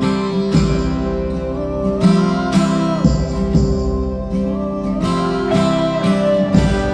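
Background music: acoustic guitar strumming under a melody line that glides up and down.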